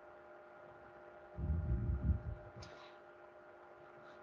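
Faint steady electrical hum, broken about a second and a half in by a brief low murmur from a man's voice, with a short soft hiss just after.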